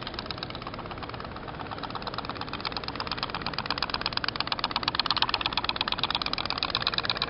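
Toy pop-pop boat's candle-heated steam engine putting away with a rapid, even popping, many pops a second, louder around five seconds in.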